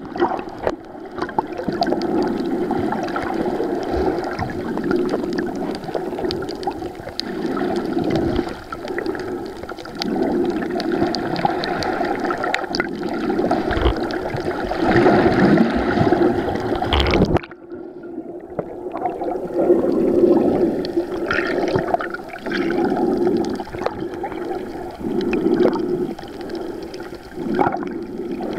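Muffled underwater water noise picked up by a submerged waterproof camera while snorkelling: gurgling and swishing that swells and ebbs every second or two. It cuts out abruptly about two-thirds of the way through and then resumes.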